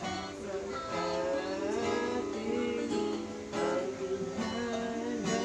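Background music led by acoustic guitar, with a fresh strum about every second.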